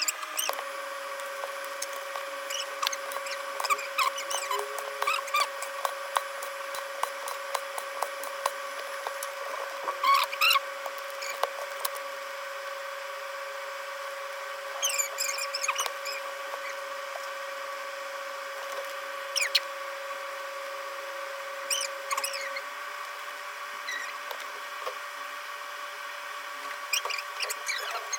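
Small clicks, taps and short squeaks of hand tools working on a phone, over a steady electrical whine.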